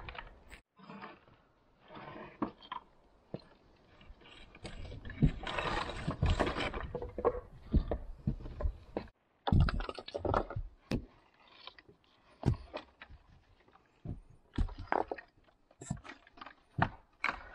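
Flat stones of a dry-stone wall knocking and scraping against each other as they are pulled off the wall and set down: irregular sharp clacks with short scraping rubs, busiest a few seconds in.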